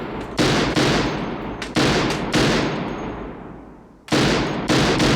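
Six gunshots in three quick pairs, each pair about half a second apart, every shot ringing out with a long echoing tail.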